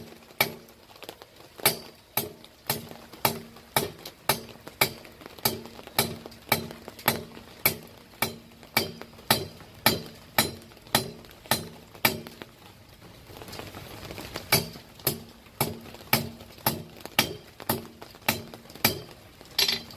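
Hammer blows on an anvil in a steady rhythm of about two a second, each with a short metallic ring, pausing briefly about two-thirds of the way through. A low steady hum runs underneath.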